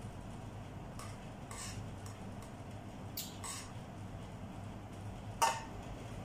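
A small metal spoon tapping and clinking against a stainless steel pan a few times, with the loudest, briefly ringing clink about five seconds in, over a steady low hum.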